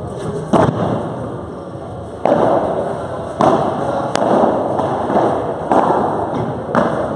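Padel rally: the ball is struck with padel rackets and bounces off the court floor and walls. About six sharp hits in seven seconds, each followed by a long echo in the large hall.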